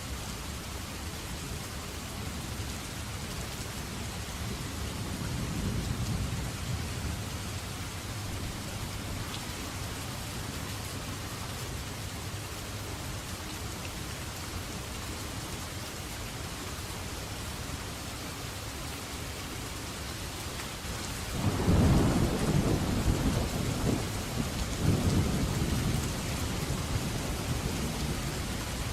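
Steady heavy rain with thunder: a soft low rumble early on, then a loud clap of thunder about three quarters of the way in that rolls on with a second swell.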